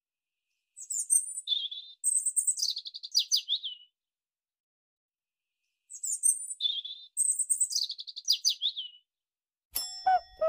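A songbird's chirping phrase of high whistled notes falling into a quick trill, played twice with exactly the same pattern, each about three seconds long with a silent gap between. Near the end a ringing, bell-like ding begins.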